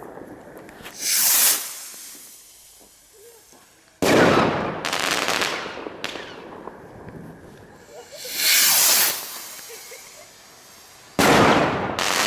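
Fireworks going off. Twice, a short hissing whoosh is followed two to three seconds later by a sudden loud bang that dies away slowly, the pattern of a rocket launching and then bursting. A second, smaller bang follows the first within a second.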